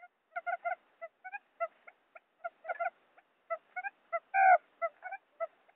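Quail calls from a trapping lure recording: quick short notes in irregular clusters, with one louder, longer call about four and a half seconds in.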